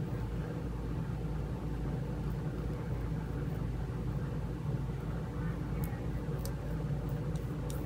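Steady low background hum in a small room, with a few faint light clicks near the end.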